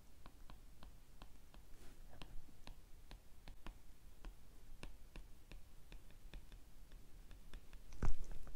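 A stylus tapping and clicking on a tablet screen while handwriting, in a quiet irregular run of sharp clicks about two to three a second. A louder low thump comes near the end.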